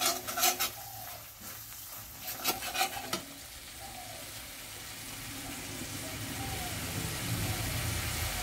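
Steel spatula scraping and stirring thick spice masala in a steel kadai, in two spells of strokes in the first three seconds. Then the masala sizzles steadily as it fries down in the oil, growing louder toward the end over a low hum.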